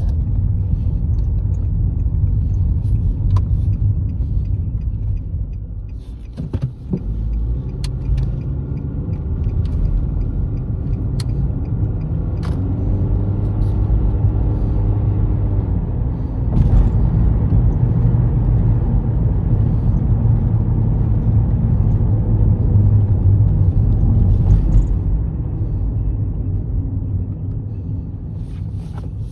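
A car driving at road speed: a steady low rumble of engine, tyre and wind noise. Its pitch rises and falls briefly about halfway through, and it grows louder a little past the middle before easing off near the end.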